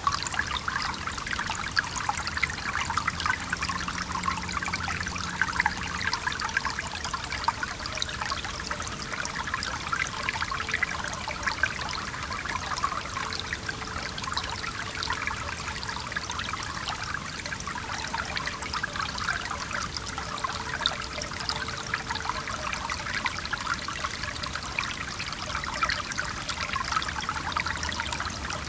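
Stream water trickling and bubbling steadily, a continuous flickering rush of flowing water.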